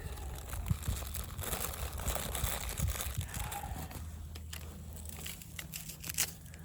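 Crinkling and rustling with scattered light clicks, as of material being handled; busier for the first few seconds, then quieter with a few sharp clicks near the end.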